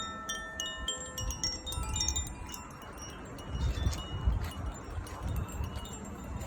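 Koshi Aria wind chime ringing: its tuned rods are struck in quick clusters of high, shimmering tones that overlap and ring on. A low rumble sits underneath midway.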